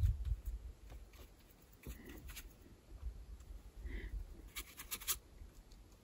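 Soft scratching of a watercolor brush stroking across cold-press watercolor paper. There is a low rumble at the start and a quick cluster of small clicks about five seconds in.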